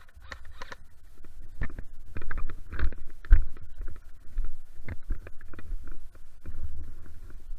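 Footsteps and gear handling on rough ground, irregular sharp knocks over a low rumble of wind on the microphone.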